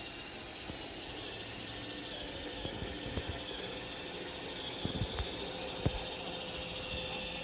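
Roomba robot vacuum running with a steady whir and hiss, with a few soft knocks about five and six seconds in.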